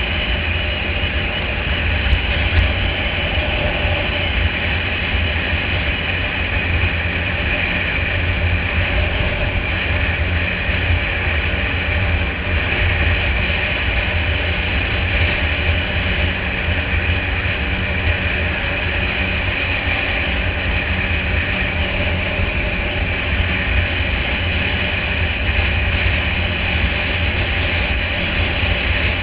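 ATV (quad bike) engine running steadily at road speed, mixed with a heavy, unbroken rumble of wind on the microphone.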